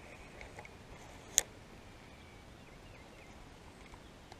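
Quiet pondside ambience with faint bird chirps, broken by a single sharp click from the spinning reel being handled about a second and a half in.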